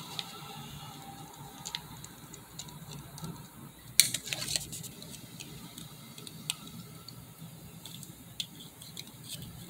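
Handling sounds of loading 35mm film by hand: light scattered clicks and rustles of the film strip, scissors and metal take-up spool, with a louder short clatter about four seconds in.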